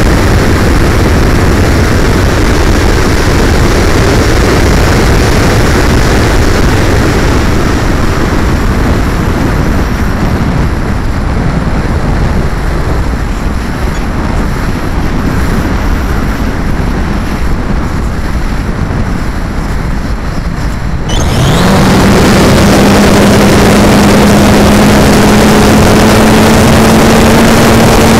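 Air rushing over the onboard camera of a Plasma 2 hotliner, an electric RC glider, as it glides with the motor off. About three quarters of the way through, the electric motor and propeller start suddenly with a loud steady whine that creeps slightly up in pitch and holds.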